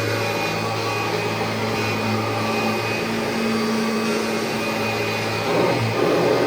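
Kirby Generation 3 upright vacuum cleaner with a nylon fan running on carpet: a steady motor hum over a rush of air. Near the end the hum briefly drops away into a rougher, louder rush.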